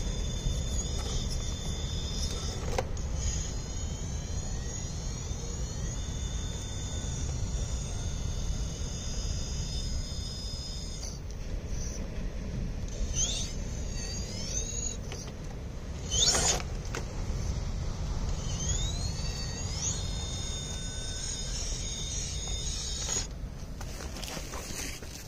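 Electric motor and gear whine of a radio-controlled rock crawler climbing a boulder: a steady high-pitched whine that rises in pitch in short spurts as throttle is applied, a few times in the middle and once near the end, over a steady low rumble.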